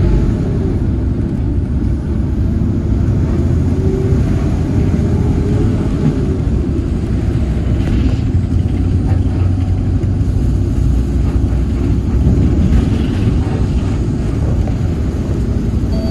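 A 2011 city bus's engine and road noise as a steady low rumble inside the cabin while under way. The engine is rather noisy, which the uploader takes for an engine in poor shape.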